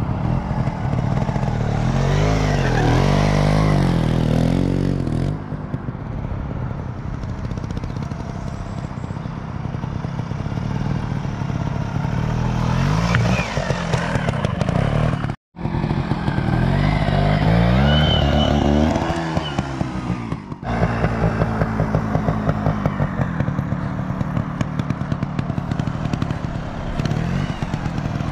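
Beta Rev3 two-stroke trials motorcycle engine, revving up and down in repeated throttle blips as the bike climbs over logs and rocks.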